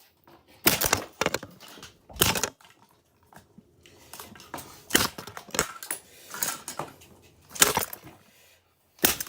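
Plastic body and handle of a Dirt Devil Classic 'race car' vacuum being struck and crushed: a series of about eight sharp, irregularly spaced cracking impacts with crackling in between.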